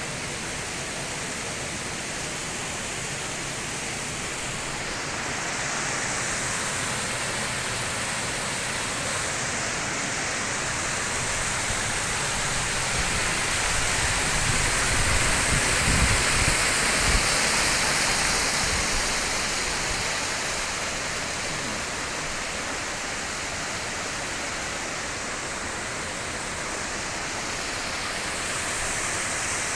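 The Kibune River's mountain stream rushing and tumbling over rocks and a small cascade: a steady hiss of flowing water that grows louder about halfway through, with some low rumbling, then eases off again.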